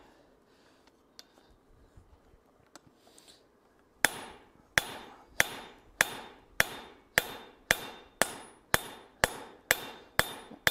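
Steel hammer striking a ball punch held on a red-hot tong nib on the anvil, driving a cup into the jaw of a farrier tong. About four seconds in, a run of about thirteen sharp blows begins at roughly two a second, each ringing briefly, and the blows come slightly faster toward the end.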